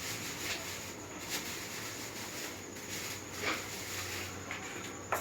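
A pan of hot dog filling simmering on a lit stove: a steady hiss with a few soft clicks or pops.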